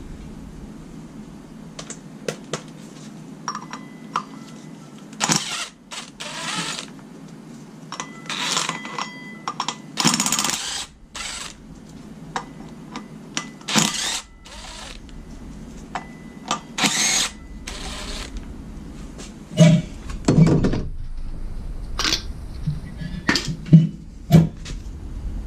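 Yellow cordless drill spinning a socket in short bursts, backing out engine pulley bolts, with knocks and clinks of the tool and parts being handled.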